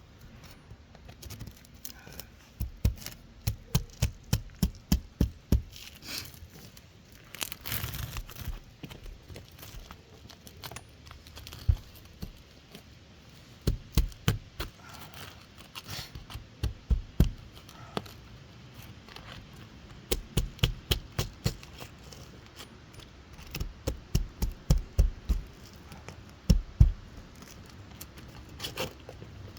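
Hammer tapping a flat bar in short runs of quick, sharp knocks, several a second, working it under an asphalt roof shingle to break the shingle's seal. The shingle is resisting.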